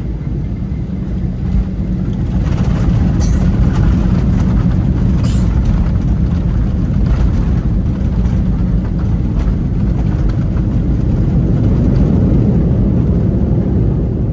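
Loud cabin roar of a Boeing 737-900 airliner during landing, heard from inside the passenger cabin: a steady low rumble that grows louder about two seconds in and stays up.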